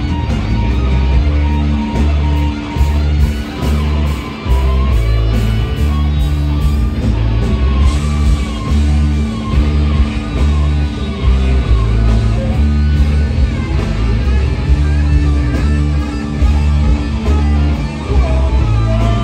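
Rock music played by a band: a heavy repeating bass line, a steady beat, and a guitar lead line that wavers and bends in the middle.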